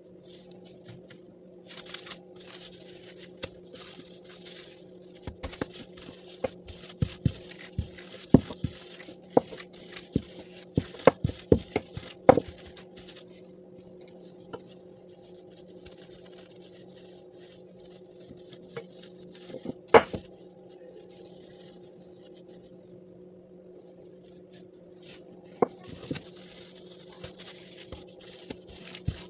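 Plastic-gloved hands working bread dough on a tabletop: gloves rustling, with irregular sharp taps and knocks against the table, thickest in the middle of the stretch and loudest once a little later. A steady low hum runs underneath.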